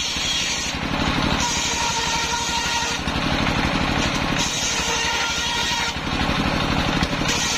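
Large circular saw bench, belt-driven by a stationary engine, ripping planks of waru wood. The engine runs steadily while the high cutting noise of the blade, with a ringing tone in it, comes and goes with each pass: one cut ends at the start, two full cuts of about a second and a half follow, and another begins near the end.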